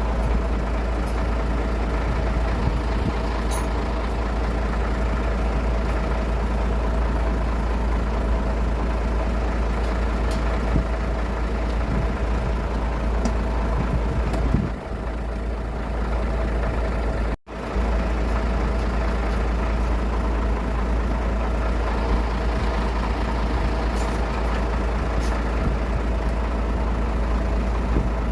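Bell 412 helicopter running steadily, its twin turboshaft engines giving a steady whine over the heavy low beat of the four-blade main rotor. The sound cuts out for an instant about two-thirds of the way through.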